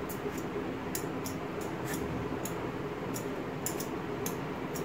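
Vegetable peeler scraping the skin off a raw green mango: short crisp strokes, irregular, about one or two a second, over a steady low hum.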